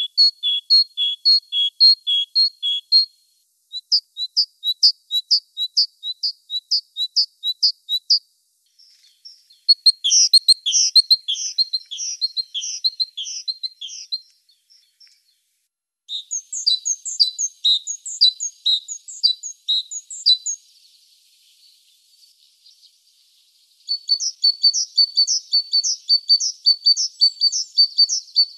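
Great tit singing: five bouts of quick, high, repeated phrases, some alternating between two notes, separated by short pauses.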